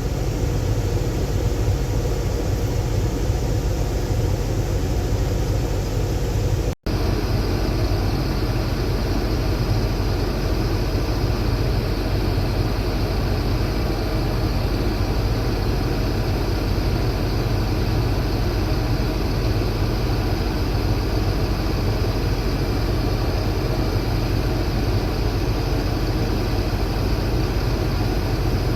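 Combine harvester running steadily while harvesting soybeans, its engine and threshing machinery heard from inside the cab. The sound cuts out for an instant about seven seconds in.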